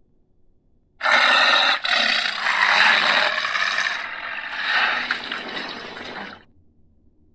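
Dinosaur creature sound effect made for Carnotaurus: a harsh, raspy call about five seconds long. It starts about a second in, runs in three joined parts and fades out near the end.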